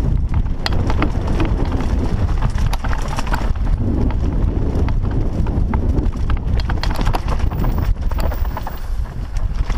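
Mountain bike riding over a rough dirt trail, heard from a helmet-mounted camera: a steady low rumble of wind and tyre noise, with frequent rattles and knocks as the bike jolts over bumps.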